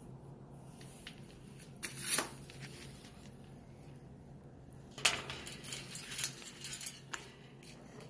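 Clicks and scrapes from a green-winged macaw clambering about its metal cage: one louder scrape about two seconds in, then a quick cluster of clicks and knocks from about five to seven seconds in.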